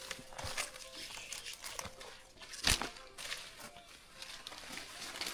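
Footsteps crunching and rustling on a forest trail, uneven steps with one louder knock nearly three seconds in.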